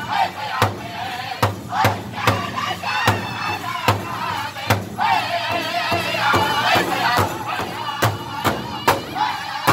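Powwow drum group singing in high, wavering voices while striking a large shared hand drum together with sticks. The beat runs at about two strikes a second at first, thins out in the middle while the voices carry on, and picks up again near the end.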